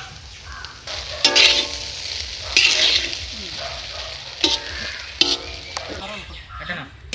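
Chicken fried rice stir-frying in a hot pan: a steady sizzle broken by scraping strokes of a metal spatula through the rice and a few sharp metallic knocks of the spatula against the pan.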